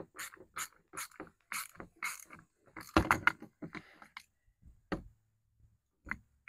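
Small hand ratchet clicking in short strokes as the 8 mm nut is backed off the hub of a 12-inch 12-volt electric fan, about two or three clicks a second. A louder cluster of clicks and knocks comes about three seconds in, and a few single clicks follow near the end.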